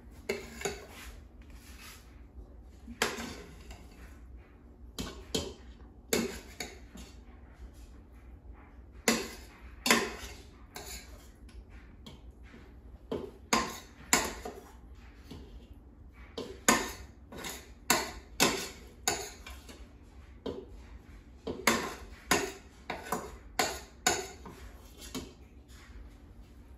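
Metal spoon scraping and clinking against the Instant Pot's stainless steel inner pot and a glass bowl as cooked rice-a-roni is scooped out. The clinks come irregularly, about one a second and sometimes in quick pairs.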